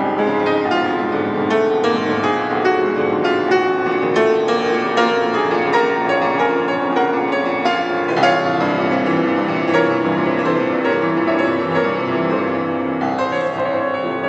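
Grand piano played solo in a free improvisation: a steady flow of quick notes over held chords, with deeper bass notes joining about eight seconds in.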